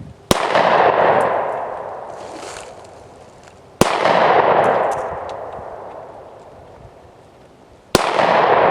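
Glock 29 SF 10mm pistol fired three times, about four seconds apart, each shot followed by a long rolling echo that fades away over a few seconds.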